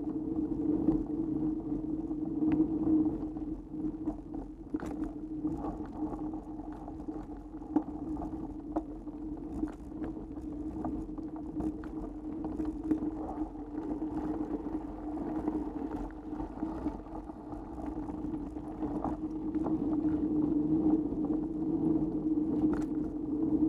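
Mountain bike rolling along a dirt trail, heard through a bike- or rider-mounted action camera: a steady hum from the tyres and drivetrain with many irregular clicks and rattles as the bike jolts over bumps.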